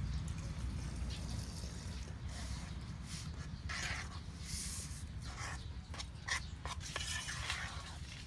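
A spoon stirring and scraping thick rice-flour batter in an enamel bowl, in short irregular strokes, over a steady low rumble.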